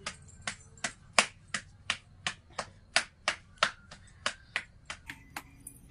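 Wheat-flour dough being patted flat between the palms into a round hand-made puri (suwadi), a steady slapping about three times a second that stops near the end.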